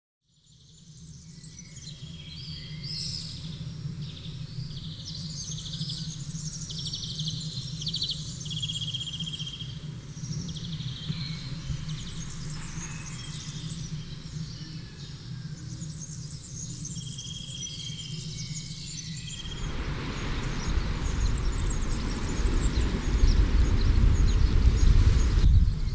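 Many small birds chirping and trilling in a dawn chorus over a low steady hum. About nineteen seconds in, the sound cuts to a louder, low rushing noise, as of wind or sea, with faint chirps still above it.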